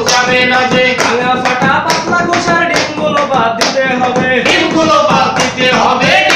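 Men singing a Bengali song unaccompanied, kept in time by a steady beat of sharp hand claps, about three a second.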